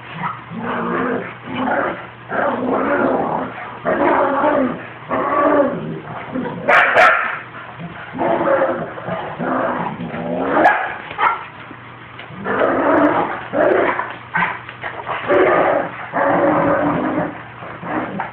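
Puppies and a dog vocalising: a continuous run of short, pitched whines and yips, one after another, with a brief sharp click about seven seconds in.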